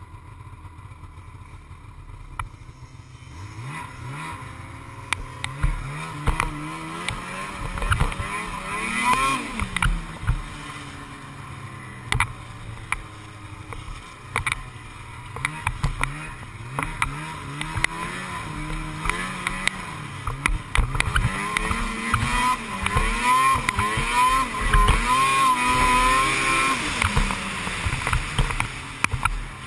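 Snowmobile engine, quiet at first, then revving up and down over and over as the sled rides across snow, loudest near the end.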